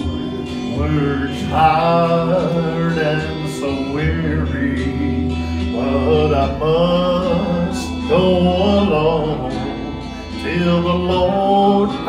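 A man sings into a handheld microphone over country-style backing music with guitar and a steady bass line. His notes are long, held and wavering.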